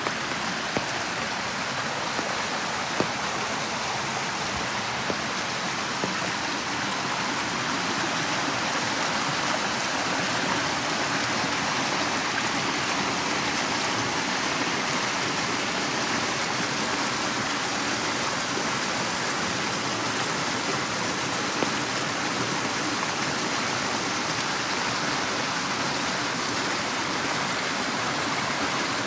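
Steady rain mixed with the rush of a stream or running water, growing a little louder after several seconds. A few sharp raindrop ticks land close by in the first few seconds.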